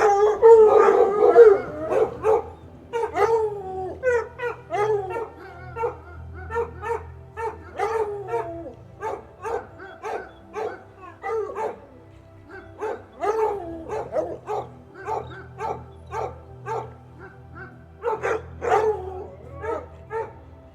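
A dog barking and howling in a long run of short calls, loudest at the start and again near the end, over steady background music.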